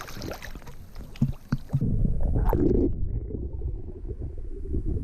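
Splashing and knocks of water at the surface, then, from about two seconds in, a muffled low rumbling with the highs cut away: the sound of a microphone under water.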